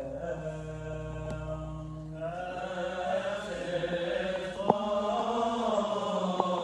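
Unaccompanied Coptic liturgical chant: long, slowly gliding held notes, with a low held note beneath for the first two seconds. A short sharp click sounds about a second in, and a louder one later on.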